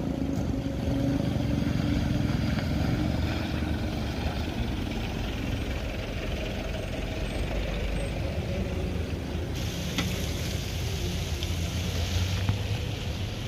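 Steady low engine rumble of road traffic as cars and a motorcycle drive past. A hiss joins in for about three seconds, starting a little under ten seconds in.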